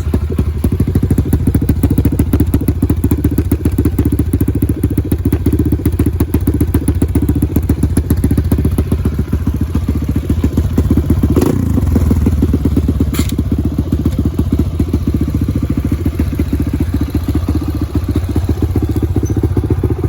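Kawasaki KLX150's modified single-cylinder four-stroke engine running at a steady idle, smooth and even, just after being started on the electric starter. Two sharp clicks come partway through.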